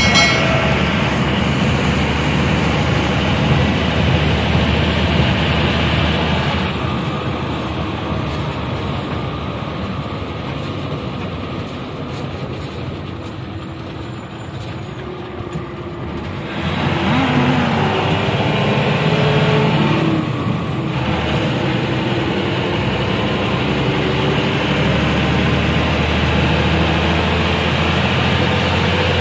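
A coach bus's engine and road noise, heard from inside the driver's cabin while it drives. The noise eases off for a stretch in the middle, then picks up again with the engine note rising.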